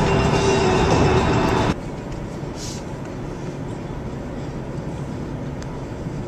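Road noise inside a moving car: loud, even tyre and wind noise that drops suddenly about two seconds in to a quieter, steady road noise.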